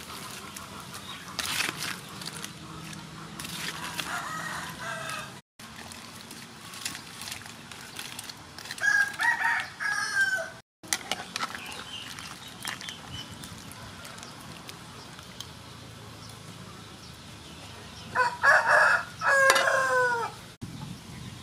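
A rooster crowing, about nine seconds in and again more loudly near the end, with softer clucking earlier, over a low steady background.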